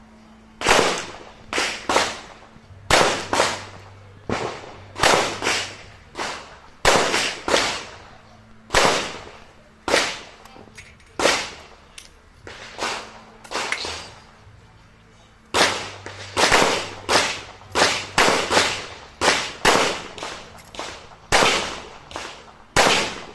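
Revolver fired rapidly during a timed action-shooting stage: about thirty-five sharp shots in quick pairs and strings, each with a short ringing tail, broken by a few brief pauses.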